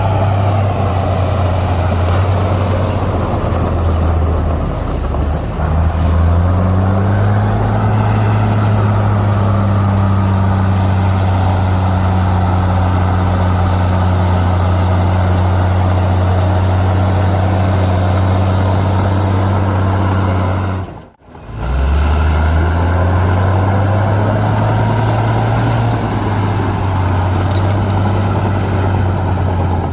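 Heavy earthmoving machine's diesel engine running hard with a deep, steady drone. It revs up about a fifth of the way in and holds there. About two-thirds through the sound cuts out for a moment, then the engine comes back revving up again before easing off near the end.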